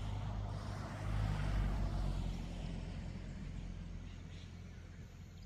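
An engine hum from a passing motor vehicle. It swells to a peak about a second and a half in, then fades steadily away.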